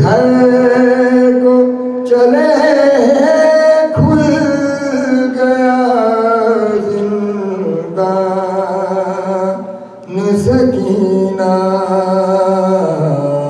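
A man chanting a religious recitation solo, with no instruments, in long held, wavering melodic phrases broken by short breaths every two to four seconds.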